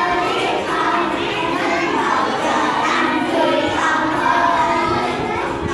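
A class of children all calling out and chattering at once, a loud, continuous hubbub of young voices.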